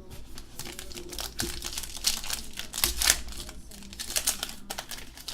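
Crinkling of a trading-card pack wrapper being handled and torn open, in a run of irregular crackles.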